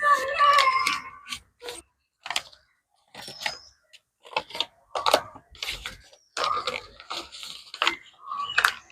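A sheet of paper crinkling and crackling in short bursts, with gaps between, as it is creased and folded into a paper boat.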